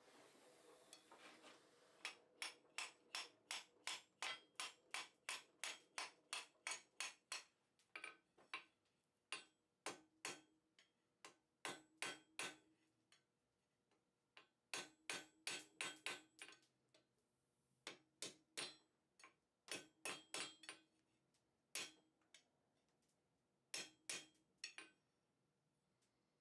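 Ball-peen hammer striking a hot 3/8-inch mild steel round bar on an anvil, in runs of ringing blows about three a second with short pauses between. The smith is drawing out the scarf on the bar end for a forge weld. A brief hiss is heard at the start.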